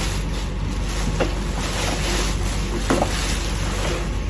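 Steady rushing background noise with a low hum, with a couple of light knocks about a second in and again near three seconds.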